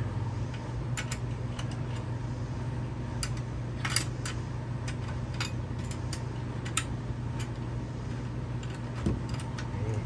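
Scattered metallic clicks and clinks from a hand tool working the mini bike's motor-mount hardware, about a dozen at uneven intervals, over a steady low hum.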